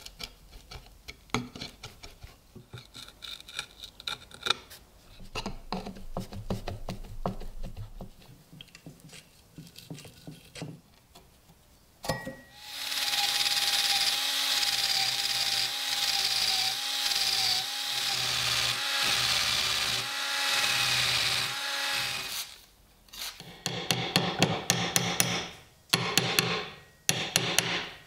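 Scattered scraping and clicks of hand-tool work on the cutter's wooden base, then a power-driven rotary wire brush running steadily against the weathered wood for about ten seconds, with a slightly wavering motor whine, stripping grime and old finish. Short bursts of rubbing, with gaps between them, follow near the end.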